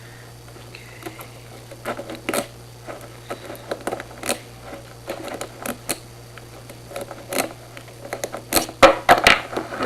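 Irregular small metallic clicks and taps from a padlock and homemade lock-picking tools being handled, with a louder flurry of clicks near the end.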